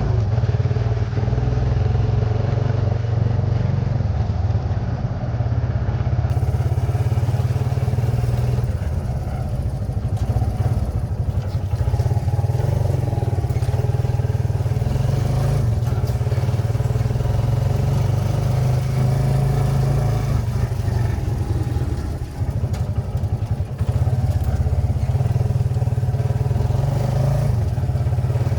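Kawasaki Barako II 175cc single-cylinder four-stroke motorcycle engine running at a steady speed with a strong low hum, freshly tuned up with new oil, spark plug and air filter. The sound dips briefly about two-thirds of the way in.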